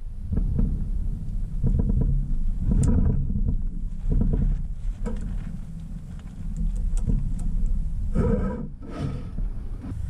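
Low, gusting rumble of wind buffeting the microphone, with a few light metallic clinks as the steel piston and gland parts of a hydraulic cylinder are handled.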